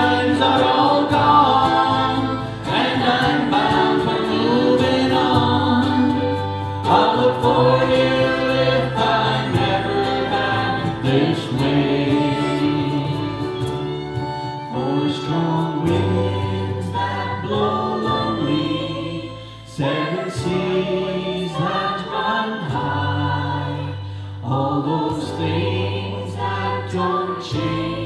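Several voices singing a folk song together over instrumental accompaniment, with a low bass note that changes every few seconds.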